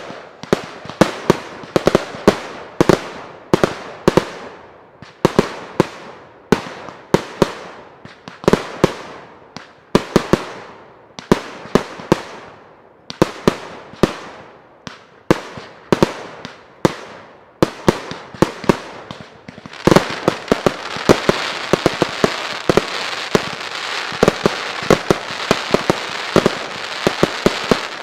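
Fireworks display: a rapid run of sharp bangs, several a second, each trailing off in an echo. About two-thirds of the way in, a dense hiss of crackling effects sets in under the continuing bangs.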